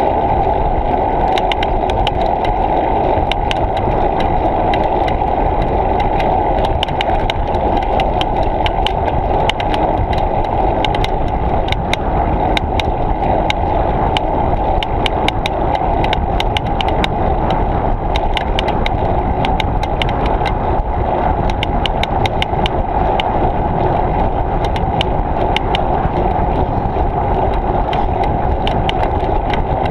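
Muffled, steady wind and rolling noise from a bicycle ride, picked up by a GoPro camera mounted on the moving bike, with many small clicks and rattles throughout.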